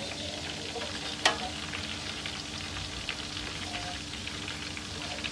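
Chopped onion frying in hot oil in a stainless steel pot, sizzling steadily with fine crackles. A single sharp tap about a second in.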